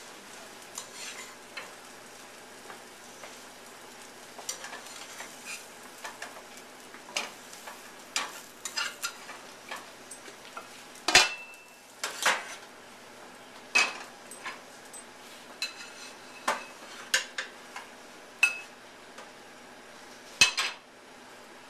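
Metal utensils and pans clinking and knocking in irregular, sharp strikes, a few of them ringing briefly, over a faint steady hiss of food frying in a pan.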